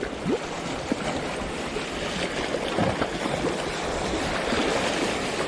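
Sea waves washing over a rocky shore, a steady rushing noise of surf.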